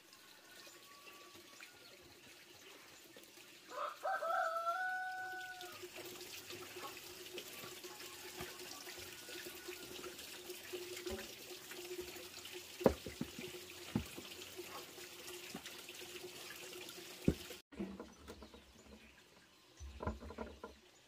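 A rooster crows once, about four seconds in, in a single call of about two seconds that rises at the start and then holds. A few sharp knocks come later.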